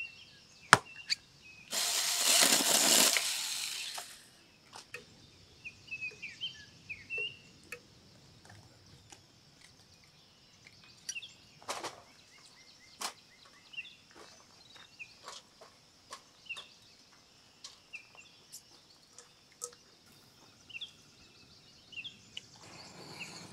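A hatchet strikes a log sharply about a second in, followed by about two seconds of loud rushing noise. After that, birds chirp in short calls with scattered knocks of split wood being handled and stacked in a metal fire grill.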